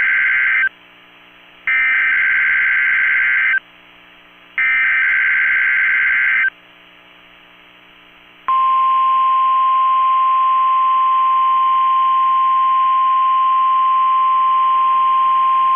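NOAA Weather Radio weekly test tones. First come the tail of one burst and then two more of the SAME digital header, harsh two-tone data squawks each about two seconds long with short pauses between. After a gap of about two seconds, the steady 1050 Hz warning alarm tone starts about eight seconds in and holds.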